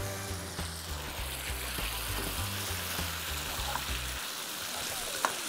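Vegetable sauce sizzling in a frying pan as it is stirred with a spoon, with a sharp click of the spoon against the pan near the end. Background music with a steady bass line plays under it and drops out about four seconds in.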